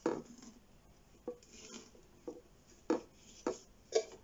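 About six light, sharp taps and knocks, unevenly spaced, as a thin stick and a hand bump against the walls of a glass tarantula enclosure while working inside it.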